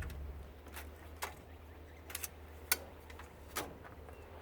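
A handful of light clicks and knocks, about five spread unevenly, from parts of a tankless water heater being handled and pulled apart, over a low steady hum.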